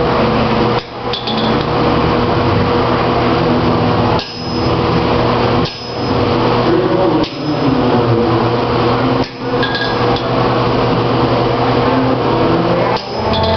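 Blacksmith's hammer striking hot metal on an anvil in rapid, continuous blows, with the anvil ringing. The blows break off in several short pauses.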